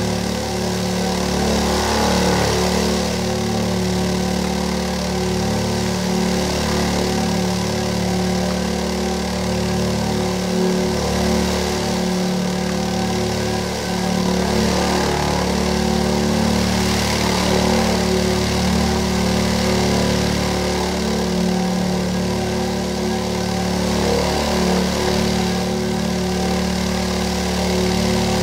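A loudspeaker playing a steady low tone with several overtones, driving a cornflour-and-water mixture that jumps on its cone.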